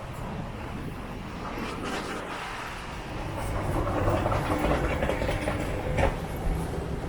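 Steady low rumble with clatter from a running vehicle, growing louder from about halfway through, with one sharp knock near the end.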